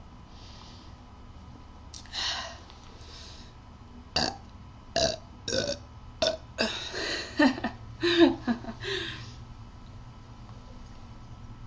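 A person burping: a string of about ten short burps one after another, some with a deeper pitched tail, the loudest near the end.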